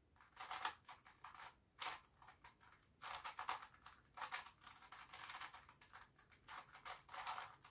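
Plastic Grilles II twisty-puzzle cube being turned by hand: a string of faint clicks and scrapes, a short burst every half second or so, as the faces and slices turn without catching.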